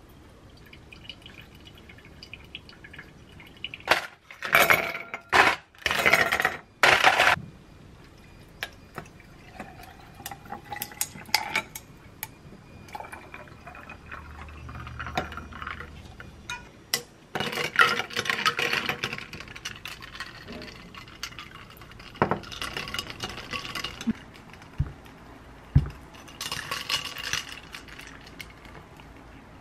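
Glass and ice clinking, with coffee poured from a glass server over ice cubes into a glass while iced drip coffee is made. Several loud clattering bursts come in the first few seconds and again near the middle and end.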